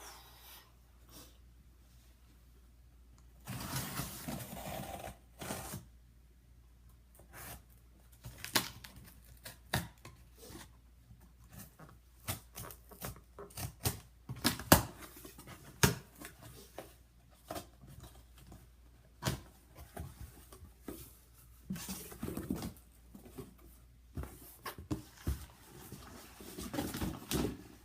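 A knife cutting through packing tape on a cardboard shipping box, with a few longer scraping, tearing stretches and many scattered clicks and knocks as the box is handled.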